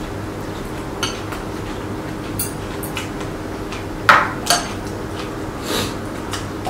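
Metal spoons and chopsticks clinking against ceramic bowls and plates while eating, a few short sharp clinks with the loudest pair about four seconds in, over a steady low hum.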